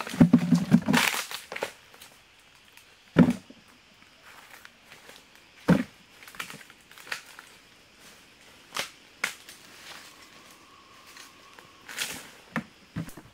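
Dry bamboo-shoot husk crackling and tearing as a wild bamboo shoot is handled and peeled, with rustling in dry leaf litter. Two sharp knocks stand out about three and six seconds in, followed by scattered lighter clicks and rustles.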